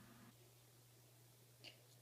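Near silence: room tone with a faint steady low hum, and one short faint sound about a second and a half in.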